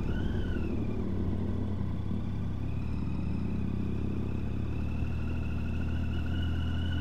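Triumph Tiger 800's three-cylinder engine running steadily as the motorcycle is ridden, with a high whine that dips and rises in the first second, then holds and slowly climbs in pitch.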